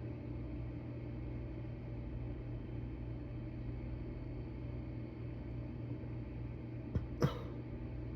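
Steady low hum or rumble with no car alarm sounding. Two sharp clicks come close together about seven seconds in.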